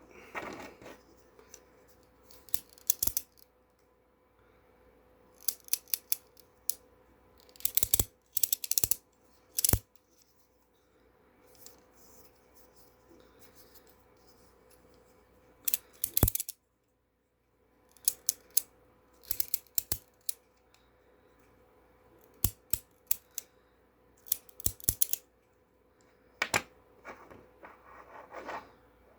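3D-printed PLA clicking-wheel fidget toy worked by hand, giving short runs of sharp clicks, a few at a time, separated by pauses of one to several seconds.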